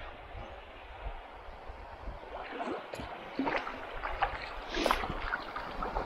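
River water rushing around an inflatable boat, with paddle strokes splashing and knocking from about two seconds in, the strongest about five seconds in.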